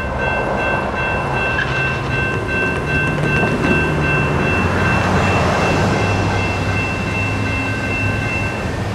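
General Signals Type 2 electronic crossing bells ringing steadily as the crossing gates rise after the train has passed, stopping near the end once the gates are up. Under them, a continuous low rumble of engines and road traffic.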